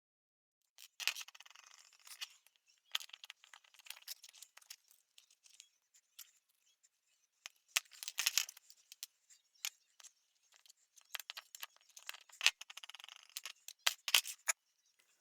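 Metal parts of a small pocket knife clicking and scraping as it is taken apart, its pins driven out: irregular sharp clicks mixed with short scraping, and a brief pause about halfway through.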